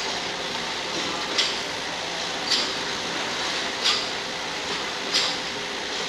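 Rotary cap-orienting machine running, with a steady rattle of metal caps tumbling in its bowl and a sharp click about every second and a quarter.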